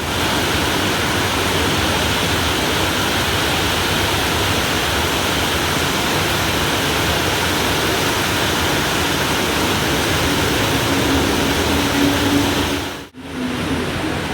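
Heavy rain pouring in a steady, even rush. It drops out for an instant near the end and comes straight back.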